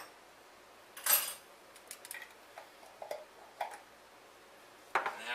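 Light kitchen handling noises from a small glass jar and its lid: a short scrape about a second in, then a few faint clicks, and a louder rustle starting near the end.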